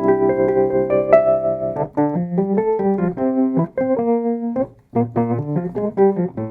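Background piano music: held chords give way about two seconds in to quicker, rhythmically repeated notes, with a brief pause near the middle.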